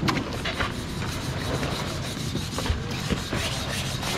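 Knife cutting salmon on a wooden cutting board: repeated rasping strokes of the blade through the fish, with a sharp knock of the knife on the board at the start.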